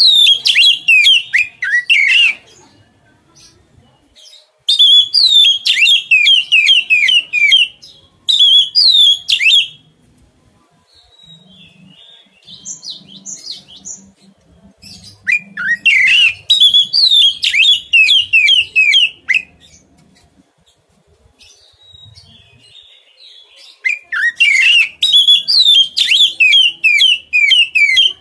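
A songbird singing loud bouts of quick, falling notes, each bout lasting two to five seconds, four bouts with pauses between them.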